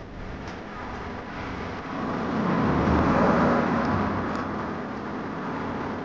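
Street traffic noise, with a car passing close by: a rush of engine and tyre noise that swells about two seconds in and fades away a couple of seconds later.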